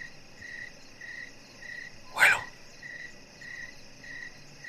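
A cricket chirping at night in an even, steady rhythm, a bit under two chirps a second. About two seconds in, one short loud noise stands out above it.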